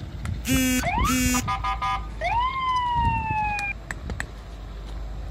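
An electronic vehicle siren sounds: two short blasts, then a rising whoop that slowly falls away over about two seconds. Sharp taps of a stone knocking in a tent peg come in between.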